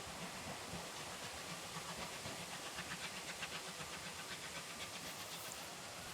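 JNR Class C10 steam tank locomotive running light: a steady hiss of steam with a quick, regular beat of chuffs and wheel noise through the middle, easing slightly near the end.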